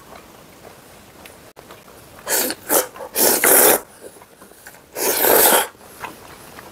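A person slurping spaghetti noodles in a spicy cream sauce, in four loud hissing sucks: three in quick succession a little past two seconds in, then one more about five seconds in.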